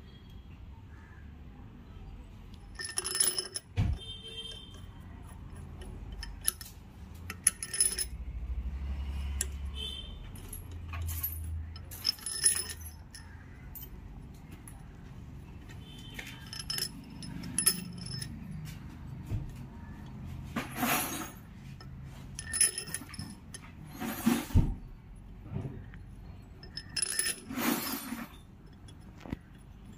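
Metal tools and engine parts clinking and knocking as an engine is assembled by hand: a long run of separate sharp metallic clinks, some ringing briefly, spread irregularly throughout.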